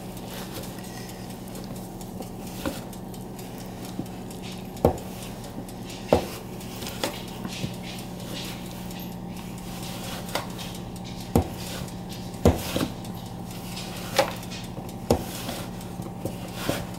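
Wooden spoon stirring clumpy flour-and-water bread dough in a plastic tub, knocking against the tub's sides and bottom at irregular intervals, about one knock every second or two.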